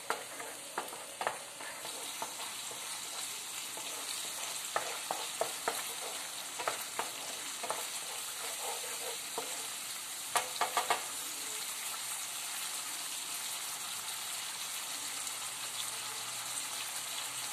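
Ground onion, tomato, ginger, garlic and chilli paste sizzling in oil in a nonstick pan while a wooden spatula stirs it, scraping and tapping the pan now and then, with a quick run of taps about ten seconds in. The masala is being sautéed until its raw smell is gone.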